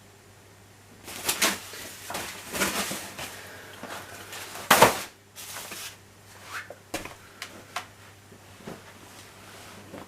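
Packaging and equipment being handled: bursts of rustling about one and three seconds in, a sharp loud knock near five seconds, then light clicks and taps.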